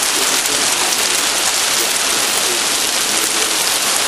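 Heavy hail mixed with rain pelting the street and parked cars: a dense, steady rush of countless small impacts.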